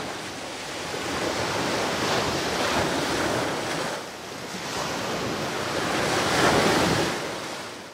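Small surf breaking and washing up a sandy beach, rising and falling in slow surges, loudest near the end and then fading out.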